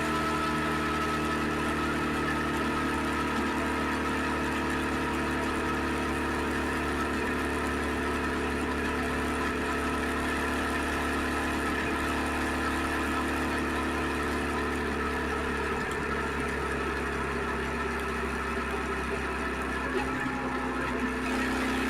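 Suzuki SV650X's V-twin engine running steadily, its tone shifting slightly near the end.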